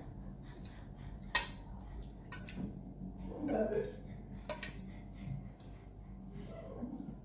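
A fork clinking and scraping against a plate of rice and sauce, several sharp clicks spread over the first five seconds, with soft eating sounds between them.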